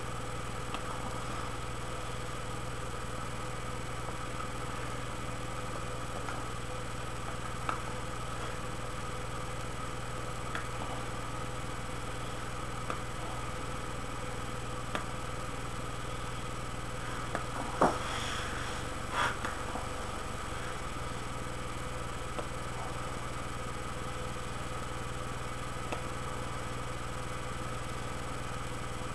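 A steady machine-like hum with fixed tones and no variation, with a few faint isolated clicks, the clearest two about 18 and 19 seconds in.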